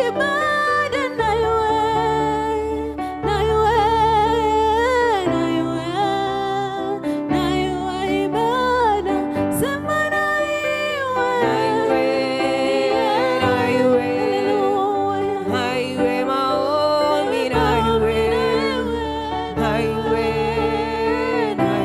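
Gospel worship song: a voice singing long, wavering held notes over a steady instrumental backing with a deep bass.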